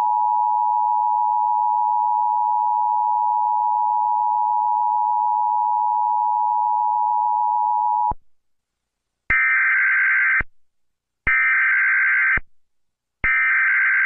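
Emergency Alert System alarm: the two-tone attention signal held steady for about eight seconds and cut off abruptly, then three short, harsh data bursts of about a second each, a second apart.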